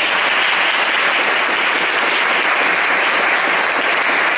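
Audience applauding: loud, dense, steady clapping from a room full of people.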